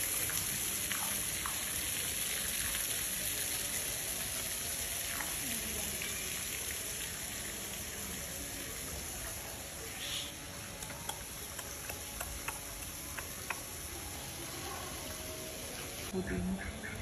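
Steady hiss of water, slowly fading, with a few faint clicks about ten seconds in.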